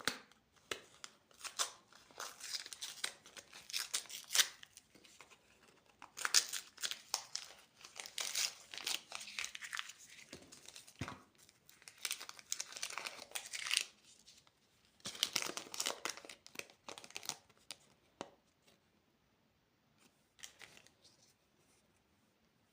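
Candy wrappers being torn open and crinkled by hand, in repeated bursts of crackling with short pauses; the crackling dies down about eighteen seconds in.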